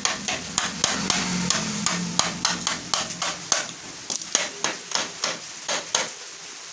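Light metal-on-metal hammer taps, about three a second, seating a gear shaft in the open gearbox half of a Hero 100cc motorcycle engine's crankcase. The taps get softer in the second half.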